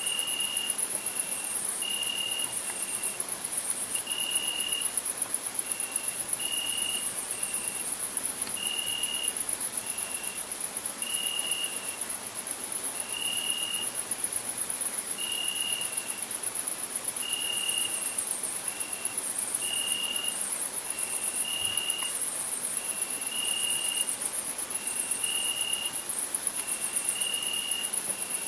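Crickets singing: a continuous, very high, rapidly pulsing trill, with a short lower note repeated about once a second, alternating longer and shorter.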